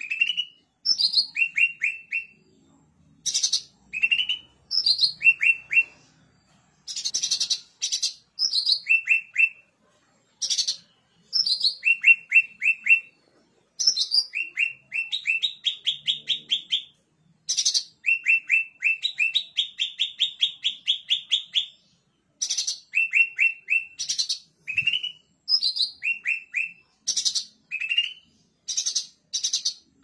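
Caged cucak ranting songbird singing in loud, repeated phrases: a sharp high note followed by a quick run of three or four short falling notes. Twice the run stretches into a longer rapid series of notes, once in the middle and once around two-thirds of the way through.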